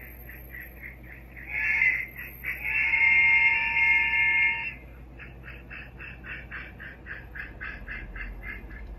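Model steam locomotive's sound: a chime whistle blows twice, a short blast about one and a half seconds in and a longer one that ends about five seconds in, over steady exhaust chuffing at about three to four beats a second that goes on after the whistle stops.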